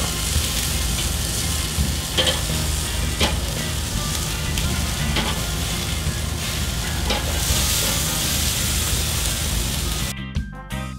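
Pork chops sizzling steadily on the grate of a charcoal kettle grill, with a few light metal clicks as tongs move the chops.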